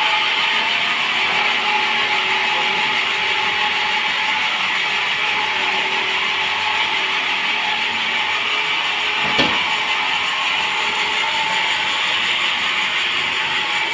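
Sawmill saw running steadily while sawing a teak log: a loud, even hiss with a steady whine, and a single knock about nine seconds in.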